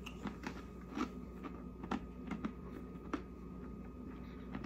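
A Cheetos Cheddar Pretzel being bitten and chewed close to the microphone: a string of irregular crisp crunches that thin out after about three seconds.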